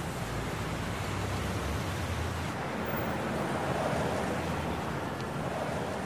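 Steady rushing noise with a low rumble underneath.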